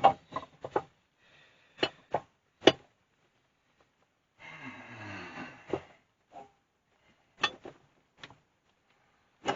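Heavy Myford ML8 lathe bed being manoeuvred onto its cabinet: a few sharp knocks and clunks, with a longer scraping stretch about halfway through.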